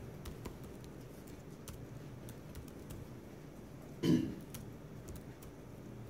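Quiet classroom room tone with faint scattered clicks, broken about four seconds in by a single short cough.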